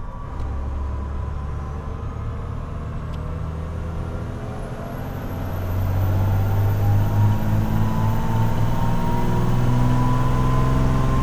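12-valve Cummins inline-six turbo diesel in a Dodge Ram pickup, running under load on a chassis dyno with methanol injection. It gets louder about six seconds in, its note climbing, with a thin high whine rising in pitch over the first half.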